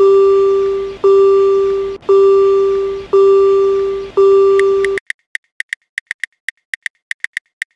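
Railroad crossing warning sounds: a ringing bell tone struck about once a second, each stroke dying away, cutting off about five seconds in. Rapid high ticks, about five a second, follow to the end.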